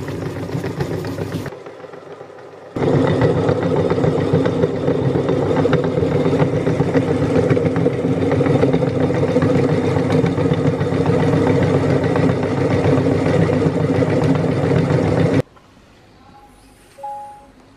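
Motor-driven meat grinder running under load as it crushes hard coloured cookies into crumbs: a steady motor hum mixed with a rattling grind. It is briefly quieter near two seconds in and stops suddenly about fifteen seconds in.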